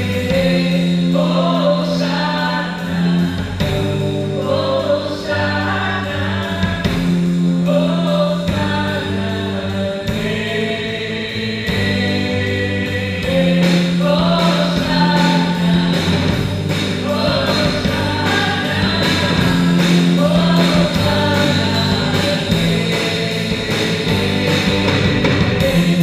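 A live rock band plays a song: several singers together over a drum kit, electric guitars and bass guitar, at a sound check.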